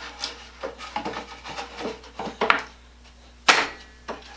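Wooden moulding boards being handled and set against a wooden tool box: scattered light knocks and rubbing, with one sharper knock about three and a half seconds in.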